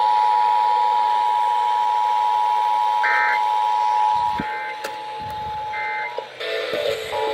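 Emergency Alert System two-tone attention signal, a steady dual-pitched beep, loud until about four seconds in and then fainter until it stops about six seconds in. Three short warbling data bursts of the digital EAS code sound over it, about a second and a half apart, typical of the end-of-message code.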